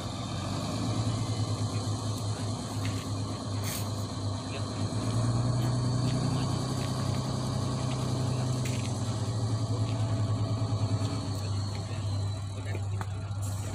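Dump truck's diesel engine running steadily as the truck drives slowly, its low hum rising a little in pitch about five seconds in and easing back near the end.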